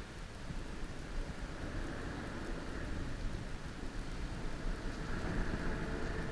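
Wind buffeting the microphone in a continuous low rumble, over a steady rushing of surf.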